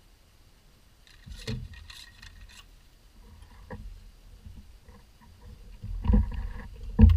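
Knocks, clatters and thumps of fishing gear being handled in a small boat as a landing net is grabbed, with the loudest thump near the end.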